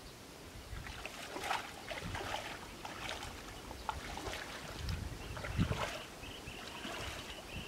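Bare feet squelching and splashing through wet mud and shallow water in irregular steps, with a few duller thuds of feet sinking into the mud.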